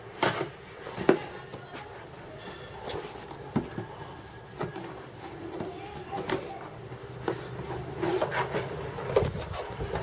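Cardboard laptop box being handled and opened: cardboard rubbing and sliding as the box comes out of its outer sleeve and the lid is lifted, with scattered light taps and knocks.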